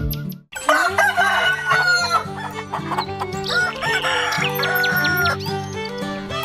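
Chickens clucking and a rooster crowing over background music, starting after a brief silent break about half a second in.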